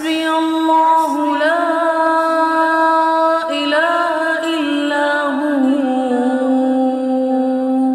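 A single unaccompanied voice chanting a melodic Arabic dua recitation in long held notes that glide slowly between pitches.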